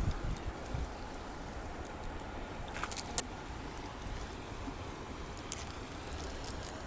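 Light metallic clinks and rattles of a spinner lure being handled while a small largemouth bass is unhooked, with a cluster of clicks about three seconds in, over a steady low rumble.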